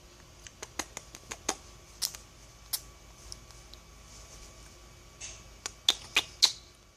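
Irregular sharp tongue clicks, a mother and baby copying each other's mouth sounds, with a quick run of louder clicks near the end.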